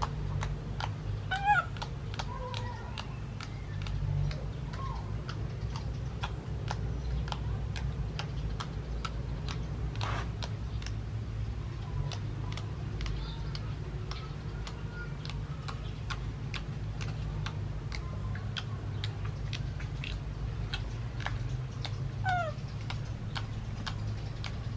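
Baby macaque giving a few short, high, meow-like cries, the loudest about a second and a half in and one falling cry near the end. Faint clicks and a steady low hum run underneath.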